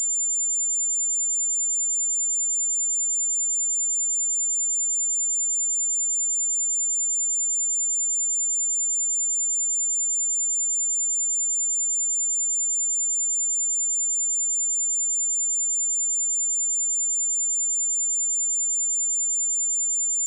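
A pure 7195 Hz sine-wave test tone, one steady high-pitched pitch held without change.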